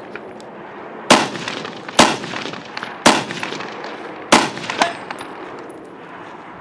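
Rifle fired four times at an uneven pace, roughly a second apart, each shot followed by a short echo.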